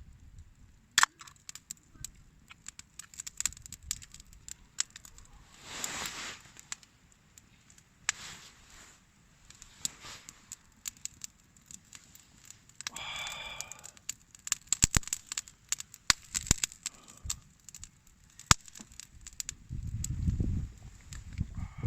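Wood campfire crackling, with many irregular sharp snaps and pops.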